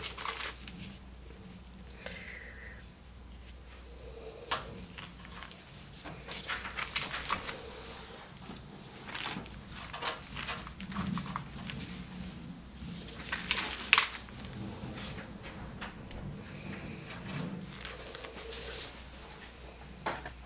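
Scattered light scrapes and clicks of hand work: a wooden stick spreading thinset mortar on a metal satellite dish and glass mosaic pieces being picked up and set down, with a plastic bag crinkling now and then.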